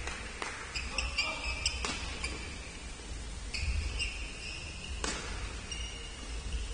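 Badminton doubles rally: rackets strike the shuttlecock with sharp cracks, the loudest about five seconds in, while court shoes squeak on the court in short high-pitched squeals.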